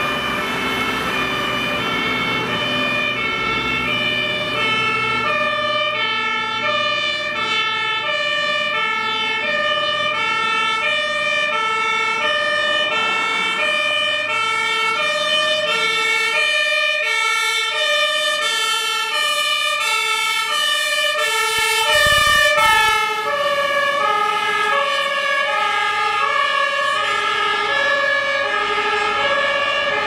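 Iveco Magirus fire engine's two-tone siren, the German "tatü-tata" Martinshorn, switching steadily between a high and a low pitch as the truck drives past. About three-quarters of the way through, a loud rush of the passing truck peaks, and after it both tones sit slightly lower as the vehicle moves away.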